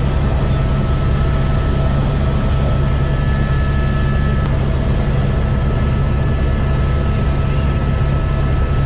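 Helicopter engine and rotor noise heard from inside the cabin in flight: a steady low drone with a few faint, steady whines above it.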